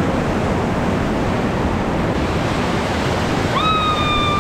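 River rapids rushing in a steady, loud roar of white water. Near the end a short high-pitched held call sounds for under a second, dropping in pitch as it stops.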